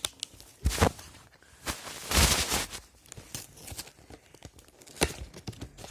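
Packaging being handled and torn open by hand: a couple of sharp knocks, then a longer rustling tear about two seconds in, and another knock near the end.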